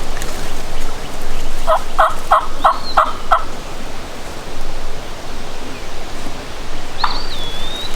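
Wild turkey calling: a run of six evenly spaced yelping notes, about three a second, starting a couple of seconds in, then a single high gliding note near the end. A steady rush of wind noise lies underneath.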